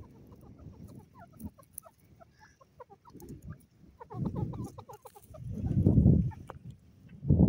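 Birds calling: runs of short, quick high chirps, and several louder low-pitched calls, the loudest about six seconds in.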